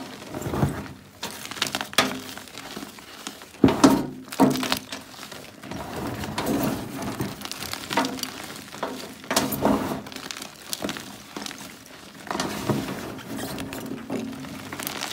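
Fingers crushing and crumbling a block of gym chalk, hardened by being left out of its wrapper for days. It makes an irregular run of dry crunches and cracks, and the loudest crunches come about four seconds in.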